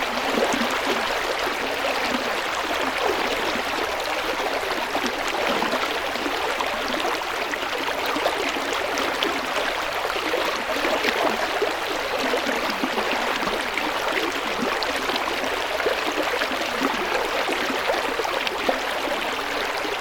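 River water flowing over stones: a steady, dense rush and babble with fine splashing.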